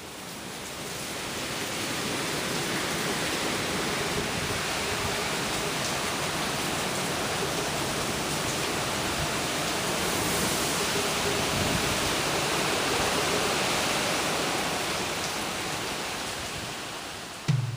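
Steady rushing of hurricane wind and rain, fading in over the first couple of seconds. The song's first drum and bass notes come in just before the end.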